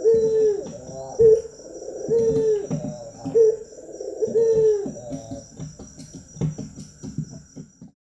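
Barbary dove (ringneck dove) cooing in its bowing display: a low rolling coo repeated about once a second, growing weaker over the last couple of seconds before it stops.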